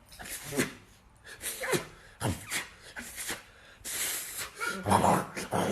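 Chihuahua yipping and whining: a run of short cries, each falling in pitch, turning noisier and more continuous near the end.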